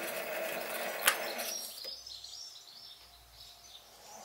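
Sieg SC3 mini lathe running with a parting tool at a cast-iron cylinder cover, a steady motor hum with a sharp click about a second in; the lathe then stops and winds down to quiet by about two seconds in.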